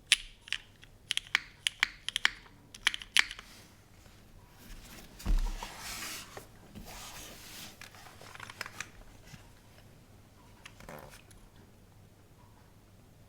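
Keystrokes on a gasket-mounted polycarbonate Kohaku keyboard with lubed, broken-in Cherry MX Black switches and GMK keycaps: about a dozen sharp clacks in the first three seconds. Then a single low thump about five seconds in, followed by a few seconds of soft rustling.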